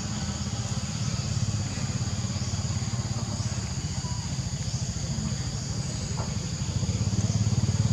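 Steady outdoor ambience: a continuous low rumble with a high, even insect drone on two steady pitches over it.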